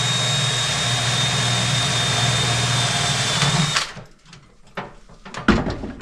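Cordless drill running steadily with a constant high motor whine, drilling a small 1/8 to 3/16 inch hole through a mounting bracket into a vintage swamp cooler's vent. It stops about four seconds in, and a few knocks and clicks follow, the loudest a thump near the end.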